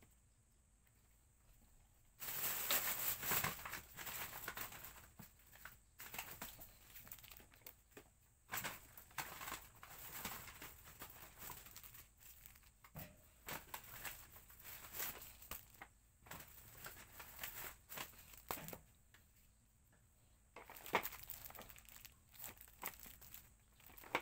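Packaging being handled: crinkling and rustling in irregular bursts, with short sharp crackles, starting about two seconds in and pausing briefly near the end.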